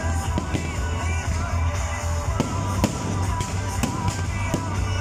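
Aerial fireworks bursting, several separate bangs and crackles, over loud music with a heavy, steady bass.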